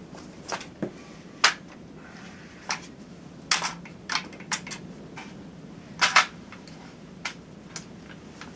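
Brownells BRN-16A1 rifle being handled as it is put back together, making about a dozen sharp clicks and knocks at irregular intervals, the loudest pair about six seconds in.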